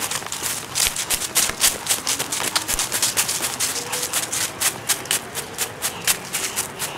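Running footsteps crunching on a park path and grass, a rapid irregular patter of steps.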